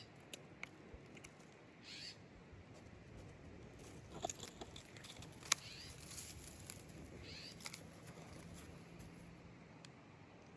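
Short, high-pitched animal calls, one every two to three seconds, over a faint outdoor background with a few sharp clicks.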